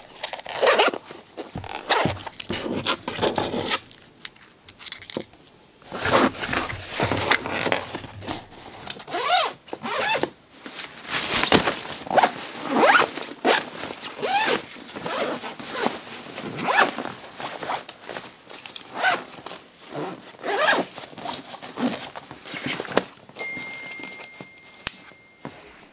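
Zippers on a duffel bag and a backpack being pulled open and shut in quick strokes of about a second each, again and again, with the handling of the bags between strokes.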